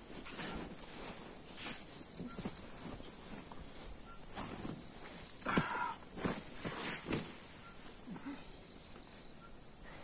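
Night insects trilling in one steady, high-pitched unbroken drone, with brief rustles of bedding now and then as people move in the tent.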